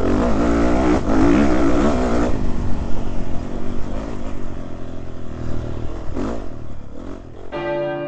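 Motocross dirt bike engine revving up and down as the bike is ridden over the dirt track, with wind rushing over the onboard microphone. Near the end the engine gives way to a steady held musical tone.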